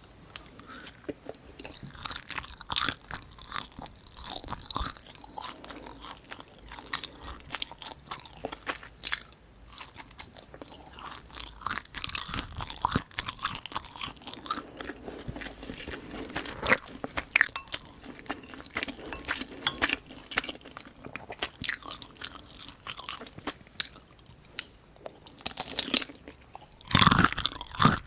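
Close-miked chewing and crunching of food, many short crunches and clicks in quick succession, louder near the end.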